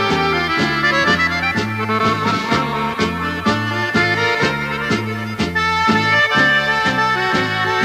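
Instrumental folk music led by an accordion, with a steady alternating bass-and-chord beat.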